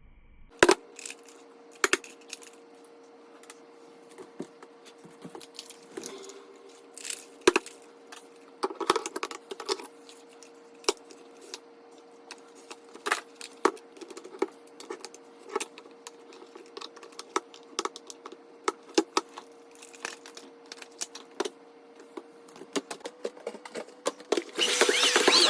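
Scattered clicks and clinks of small hard objects being handled, irregular and a few a second at most, over a faint steady hum. A louder rushing noise starts near the end.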